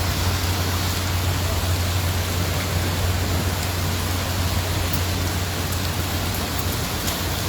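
Rainstorm: rain falling in a steady, even hiss, with a steady low rumble underneath that eases off near the end.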